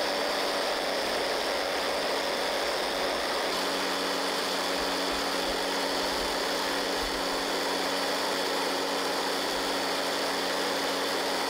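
Electric motor and gearbox running steadily, driving a 3D-printed screw water pump that is now primed and pumping: an even mechanical whir made of several constant tones.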